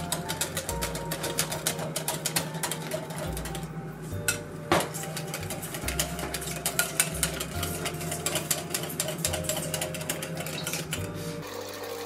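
Wire whisk beating batter in a glass bowl: a fast, steady run of light clicks as the wires strike the glass, with one louder knock about five seconds in.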